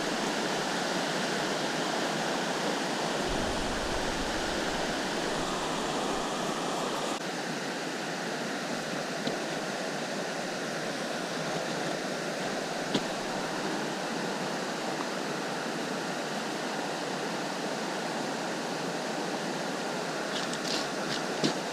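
Steady rushing of river water, with a brief low rumble a few seconds in and a few short clicks near the end.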